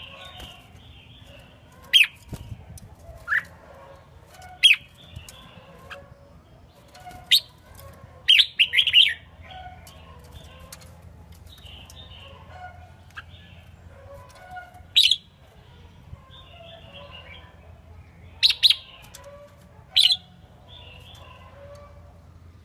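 Red-whiskered bulbul calling: short, sharp, loud calls every few seconds, with a quick run of several calls about a third of the way in and softer chirps in between. A faint steady low hum lies underneath.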